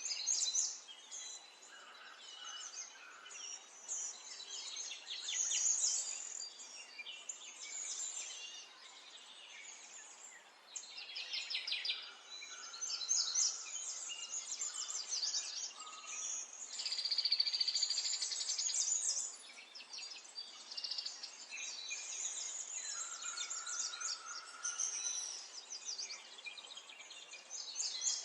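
Several small songbirds chirping and singing at once, quick twittering calls and trills overlapping and coming and going without a break.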